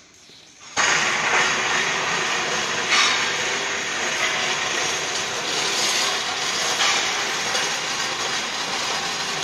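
Loud, steady clattering machinery noise of a steel fabrication workshop, cutting in suddenly about a second in, with a few knocks over it.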